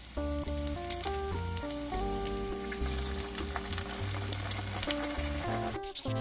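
Shredded cabbage and batter frying in an oiled pan, sizzling and crackling with many small pops, over light background music with a stepped melody and bass. The sizzle cuts off shortly before the end while the music carries on.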